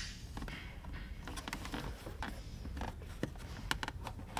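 Scattered light clicks, taps and rustles of hands handling wiring, over a steady low hum.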